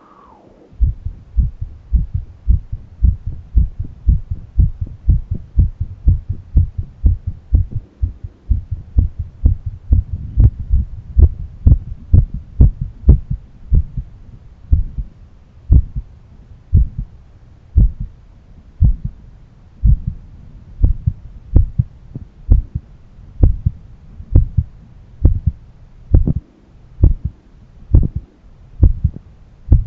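A man's heartbeat heard through a stethoscope on the chest: a steady, regular train of low thumps that starts about a second in.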